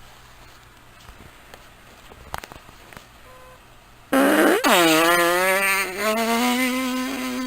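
A long, loud fart starting about four seconds in: a raspy buzzing tone that dips sharply in pitch, then holds steady for over three seconds. Before it there is only faint room noise with a few small knocks.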